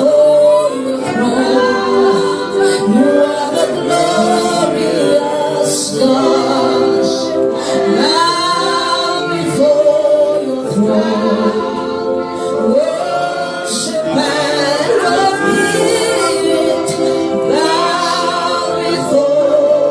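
Worship music: voices singing a slow gospel-style song over steady held chords.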